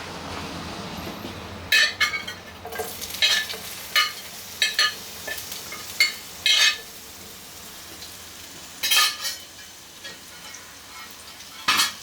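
Onions and tomatoes frying in a hot pan with a steady sizzle, while a utensil clinks and scrapes against the pan about nine times in short, ringing strikes.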